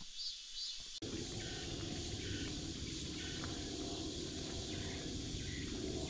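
Summer insects calling in a pulsing rhythm, about three pulses a second. About a second in, the sound cuts abruptly to a steadier rough outdoor noise, with the insect calls still faintly above it.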